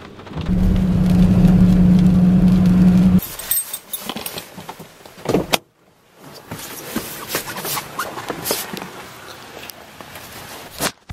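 A steady mechanical whirr inside a car for about three seconds, then a sharp knock about five seconds in, followed by jangling keys and handling rattles.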